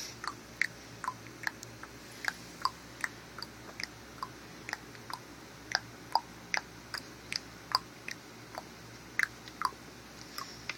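A child making mouth noises: a string of short, sharp tongue clicks and lip smacks at varying pitches, about two a second, irregular.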